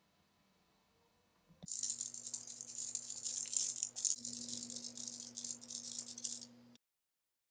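Loose plastic building bricks rattling as a boxed brick set is shaken, a dense continuous rattle over a steady low hum that starts suddenly and cuts off abruptly after about five seconds.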